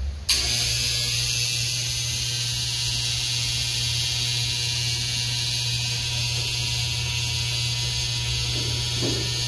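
An electric motor switches on abruptly and runs at a steady hum with a hiss above it.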